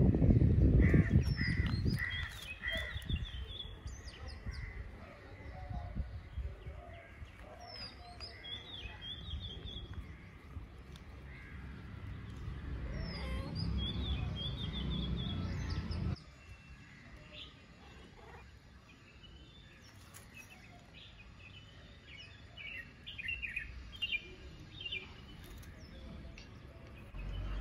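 Birds chirping and calling outdoors, short series of high notes recurring every few seconds. Under them is a low rumble, loudest in the first two seconds and again from about twelve to sixteen seconds in.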